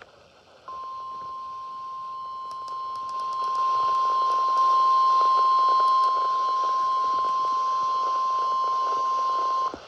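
NOAA Weather Radio 1050 Hz warning alert tone from a Midland ER310 weather radio's speaker: one steady tone that starts under a second in, gets louder in a few steps, and cuts off about nine seconds later. It signals that a warning broadcast, here a severe thunderstorm warning, is about to be read.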